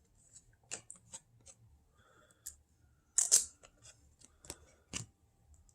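Trading cards being flipped through by hand: a scattered series of soft clicks and swishes of card stock, the loudest a little over three seconds in.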